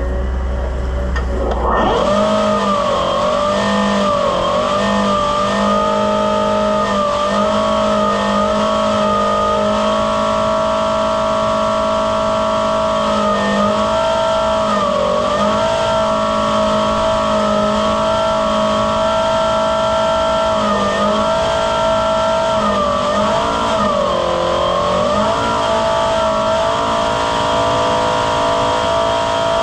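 Buffalo Turbine Cyclone Hydraulic blower running at speed: a loud rush of air over a high turbine whine. It comes up sharply about two seconds in and then holds steady, with the pitch sagging briefly now and then.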